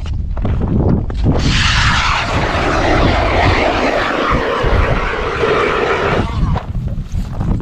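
ION G2 electric ice auger drilling through lake ice: the motor starts about a second and a half in, runs steadily as the blades cut, and stops abruptly about six seconds in.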